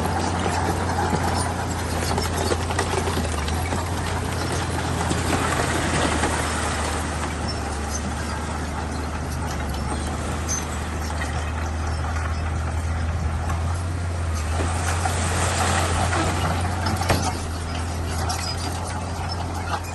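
Bulldozer's diesel engine running steadily under load, with a deep continuous drone and clattering noise from the machine at work. There is a single knock about three-quarters of the way through.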